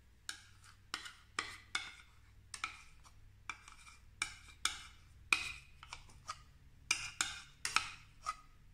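Metal fork scraping and clinking against a small glass bowl while scooping out thick sweetened condensed milk: a string of short, irregular scrapes, roughly two a second.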